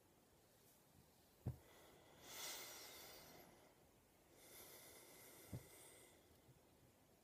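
Near silence with faint handling noise: two soft knocks, about four seconds apart, and two brief rustling swishes as a hand strokes a pet rat on a knit sweater.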